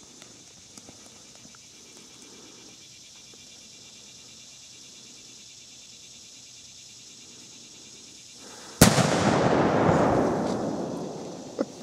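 A black-powder stick bomb explodes with a single sharp bang about nine seconds in, followed by a rumbling echo that fades away over two to three seconds.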